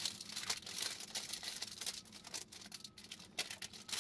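Clear plastic wrapping being torn off a small cardboard toy box and crinkled in the hands: a run of quick, irregular crackles.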